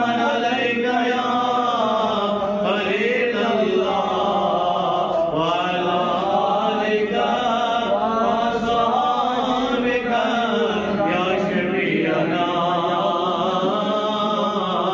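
A man's voice chanting devotional praise-poetry in long, drawn-out melodic phrases, with held notes that slide slowly up and down in pitch.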